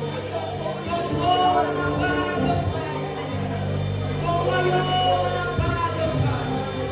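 Live worship music in a church hall: singing over a band with sustained bass notes.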